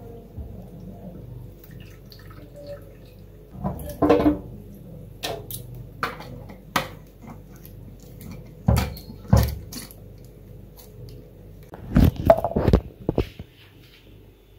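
Plastic water bottle being filled from a kitchen tap and handled at a metal sink: water from the tap with a series of short knocks and clunks of the bottle and its screw lid, the loudest cluster near the end, over a low steady hum.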